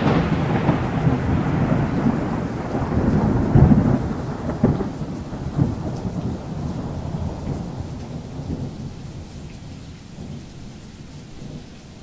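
Thunderstorm sound effect: thunder rumbling over rain, with sharper cracks about three and a half and four and a half seconds in, fading slowly away.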